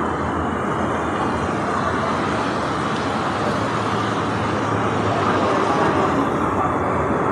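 Steady road traffic noise, a constant rushing haze with a low engine hum that rises and fades about four seconds in.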